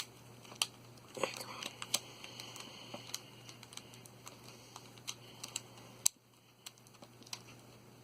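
Scattered light plastic clicks and taps of speedcube pieces being handled and pressed back into a QiYi Valk 3, over a steady low hum that stops about six seconds in.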